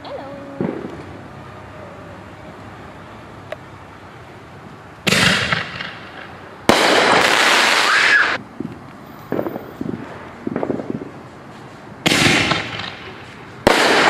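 A six-shot canister-shell firework firing: after a few quiet seconds, loud bangs of shells launching and bursting overhead, coming in quick succession with smaller pops between them.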